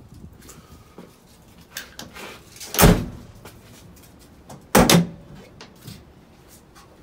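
Ford Ranger pickup tailgate being shut and reopened: a loud metal clunk about three seconds in as the tailgate slams and latches, then a second loud clunk about two seconds later as the latch releases and the tailgate starts lowering slowly on its new damper.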